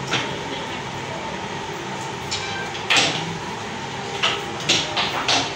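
A steady background hum with a handful of short, sharp clacks: one at the start, the loudest about three seconds in, and a quick cluster of four near the end.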